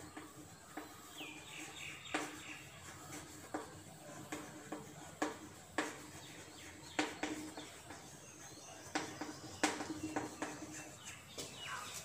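Chalk writing on a chalkboard: irregular taps and short scrapes as the chalk strikes and drags across the board, several in quick succession at times.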